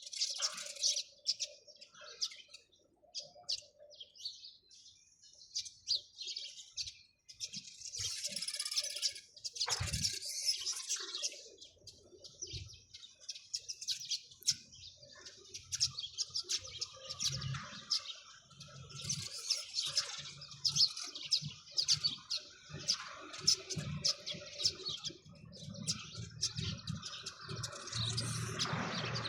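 Sparrows chirping: many short, high chirps overlapping one another, growing denser about a third of the way in.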